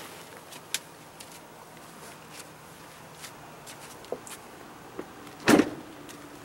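Quiet handling noise from a hand-held camera moving about a pickup's open cab, with scattered light clicks and one loud short thump about five and a half seconds in.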